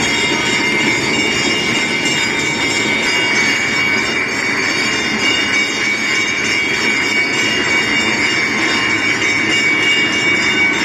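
Large hanging brass temple bell rung continuously during aarti, its strokes running together into a loud, unbroken metallic ringing with several high tones held steady.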